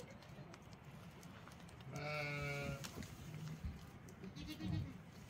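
A goat bleats once, a wavering call a little under a second long, about two seconds in; a shorter, lower goat call follows near the end.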